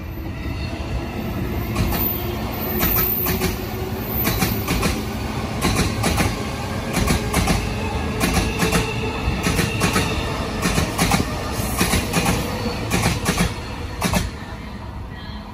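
JR Keiyo Line E233-series electric commuter train running out past the platform end. Its wheels clack over rail joints in an irregular run of sharp clicks over a steady rumble, with a faint whine underneath.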